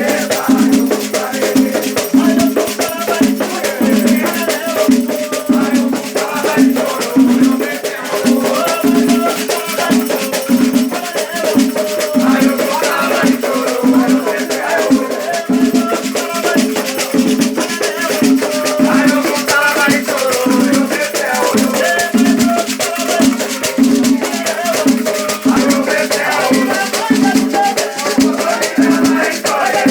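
Afro-Brazilian batuque ceremonial music: a drum keeps a steady beat of about two strokes a second while shaken rattles hiss continuously and voices sing over it.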